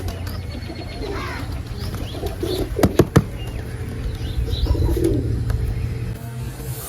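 Pigeons flapping their wings and calling, with chirp-like calls through the first half. Three sharp knocks come in quick succession about three seconds in and are the loudest sounds.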